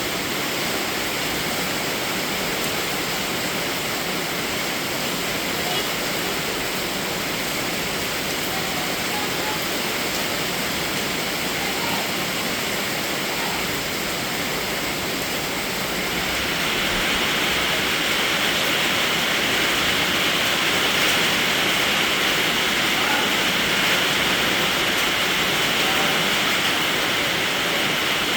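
Steady heavy rain, a dense even hiss that grows a little louder about halfway through.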